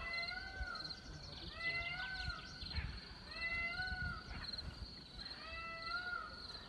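An animal gives four short pitched calls, each rising then falling and under a second long, about every two seconds, the first right at the start. Insects chirp steadily in a fast high pulsing trill behind them.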